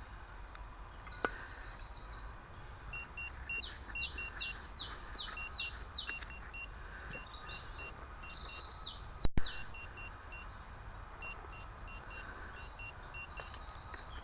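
Runs of short, evenly spaced high electronic beeps from metal-detecting gear, typical of a detector or pinpointer signalling a buried target, with a bird calling in quick falling chirps over them. A single sharp knock sounds a little after nine seconds.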